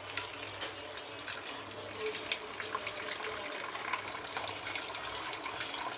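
Water running and splashing steadily as fresh herb leaves are washed in it.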